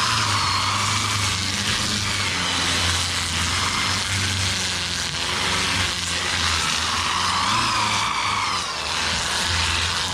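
A Sand-o-Flex flap wheel on an extension shaft, spun by a DeWalt drill, brushing down the charred surface of a torch-burned wood carving. The drill runs steadily with the hiss of the abrasive against the wood, and its pitch wavers a few times as the pressure changes.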